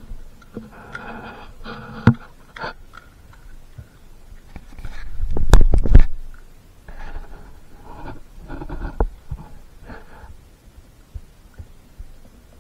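A dog gnawing and crunching on a raw lamb leg bone: irregular wet chewing and scraping with sharp cracks of teeth on bone. About five to six seconds in comes a louder low rumble with several sharp cracks.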